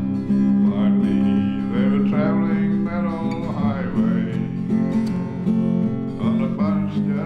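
Background music: strummed acoustic guitar over a held low note, with a wavering melody line on top.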